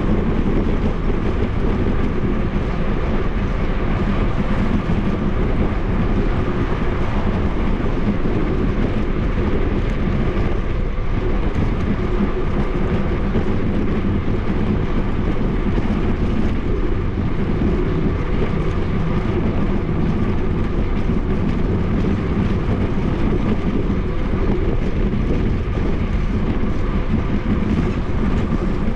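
Steady riding noise of a bicycle moving along a paved bike lane: even wind rush on the microphone over a low tyre rumble, unchanging throughout.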